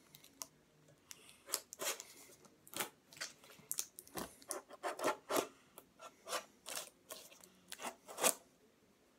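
Scissors cutting and scraping at the tape sealing a metal 16 mm film can: a run of irregular scrapes and snips, the loudest near the end.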